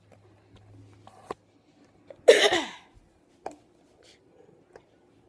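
A person's single short, loud vocal sound, cough-like and falling in pitch, about two seconds in, with light clicks and knocks from the phone being handled around it.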